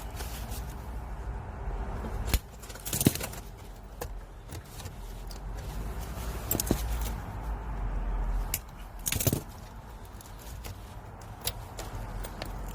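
Scattered clicks and short rattles of a truck's fuse-box wiring harness and connectors being handled, over a steady low hum; the sharpest clicks come about 3 and 9 seconds in.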